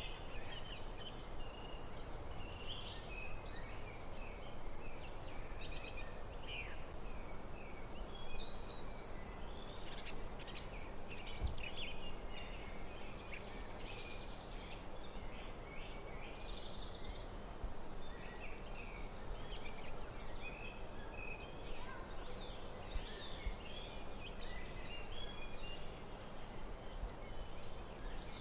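Forest birdsong: several birds chirping and trilling in quick short phrases, over a steady low outdoor hiss.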